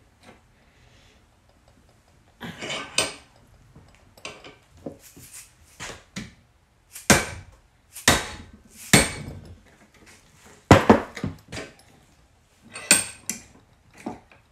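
Dead-blow hammer striking a combination padlock held in a bench vise: a series of hard blows with a metallic rattle, the heaviest landing about a second apart in the second half. It is a bypass attempt, hammering the lock to jar its shackle open.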